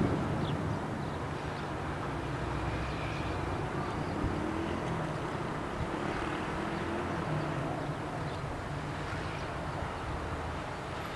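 The rumbling tail of a heavy distant blast fades in the first half-second, then a steady low drone of distant tank engines carries across open ground.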